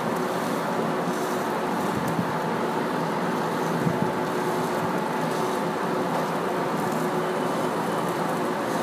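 Tuna-and-oat patties sizzling in sesame oil in a frying pan on a gas range, a steady hiss, with the faint steady hum of a commercial kitchen extractor hood under it.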